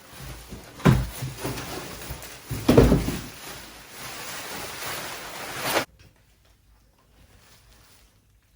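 Handling noise while the bike's parts are unpacked from the box: a steady rustle of packaging with two heavy thumps, about a second in and about three seconds in, cutting off suddenly near six seconds.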